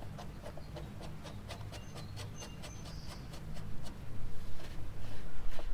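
Steady light clicking, about five clicks a second, from a 5 mm Allen key tool turning the lower bolt of a Honda Goldwing GL1500 front brake caliper. From about four seconds in it gets louder, with low handling thumps against the caliper and fork.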